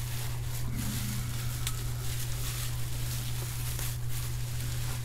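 Bubble wrap being handled and unwrapped by hand, the plastic crinkling and rustling in scattered soft crackles over a steady low hum.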